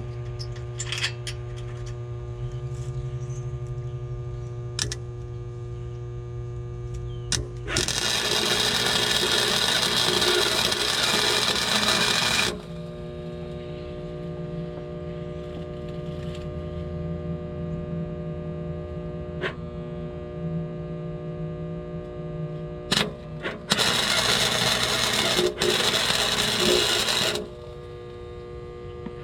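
Two bursts of arc welding on an exhaust pipe, each about four seconds long, over a steady electrical hum from the welder.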